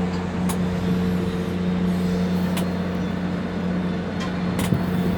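Steady electric hum of a tower crane's machinery, heard from the operator's cab, with a few light clicks.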